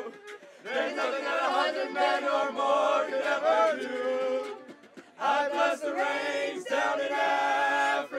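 A small group of voices singing together, in phrases with short breaks about half a second in and just before five seconds in.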